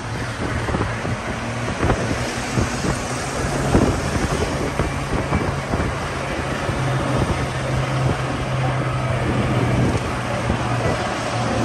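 Jeep driving: a steady low engine hum under a dense rush of wind and road noise.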